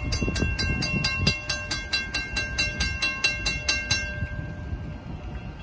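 Railroad grade crossing warning bell ringing rapidly, about three strikes a second, while the crossing gate lowers. It cuts off suddenly about four seconds in, as the gate arm comes to rest fully down.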